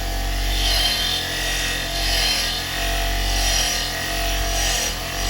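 Powered wire brush running steadily while an old steel spanner is held against it, the scrubbing swelling and easing about every second and a half as the spanner is worked, cleaning off grime to bring up the maker's stamp.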